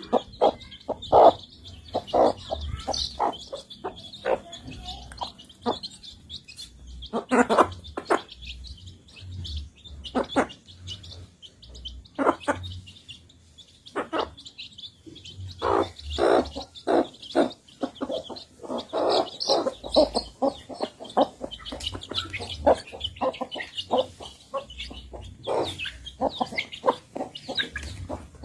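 Chickens feeding: irregular quick pecking taps, coming in bursts with a quieter stretch in the middle, over continuous high-pitched chirping.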